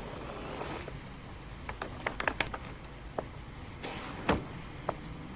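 Light clicks and knocks of things being handled at a car's open hatch, then one heavier thump about four seconds in as the car is shut.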